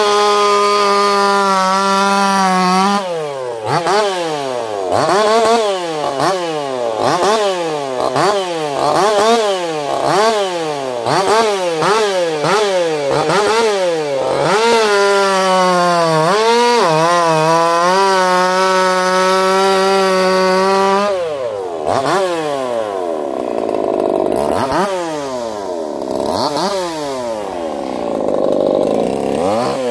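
Echo CS-4910 two-stroke chainsaw, fitted with a swapped taper-top piston and crankshaft, running at high revs. Its pitch is held steady at first and again midway. In between and near the end the revs rise and fall repeatedly, about once a second.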